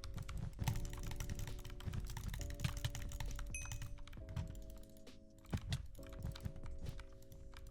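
Rapid, irregular typing on an Anne Pro 2 mechanical keyboard fitted with lubed linear red switches and XDA keycaps, over background music with held chords.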